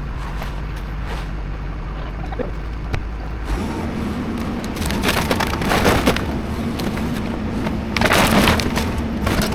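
Excavator engine running, revving up about a third of the way in, then crunching and splintering of building debris twice as the machine tears into the structure.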